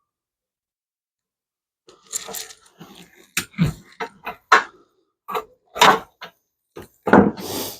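Irregular knocks and clinks of small metal dash parts and hand tools being handled on a workbench, starting about two seconds in.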